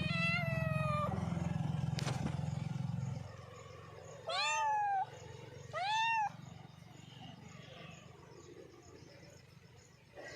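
Domestic cat meowing three times: one meow that falls slightly in pitch at the start, then two shorter meows that rise and fall, about four and six seconds in.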